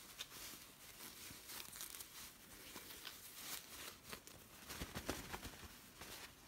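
Faint rustling and crinkling of satin fabric handled as a small sewn pouch is turned right side out, with a few louder swishes about two, three and a half and five seconds in.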